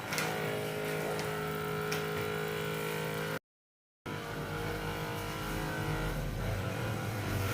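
A steady motor hum holding one even pitch for about three seconds. It cuts to silence for about half a second, then comes back as a rougher, lower rumble.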